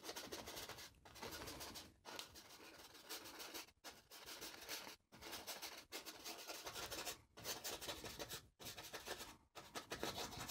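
Bristle brush scratching across a stretched canvas in oil paint: a run of short strokes, about one a second, with brief pauses between them.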